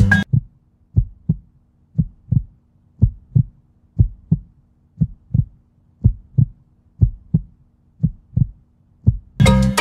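Heartbeat sound effect: low, soft double thumps, about one pair a second, over a faint steady hum. Marimba music cuts off just after the start and comes back near the end.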